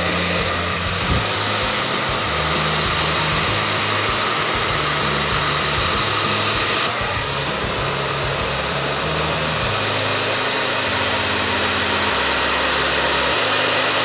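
Handheld hair dryer running steadily, blowing a constant hiss of air onto hair.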